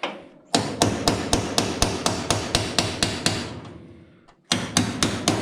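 Hammer blows on the steel sheet metal of a car body, struck about five times a second in two quick runs with a pause of about a second between them.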